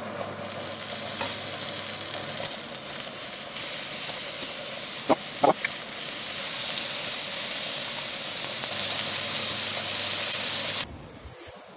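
Zucchini slices sizzling on a hot, lightly oiled ridged grill pan as they are laid down one after another with metal tongs, with a few light clicks and taps of the tongs. The sizzle builds a little as the pan fills and cuts off suddenly near the end.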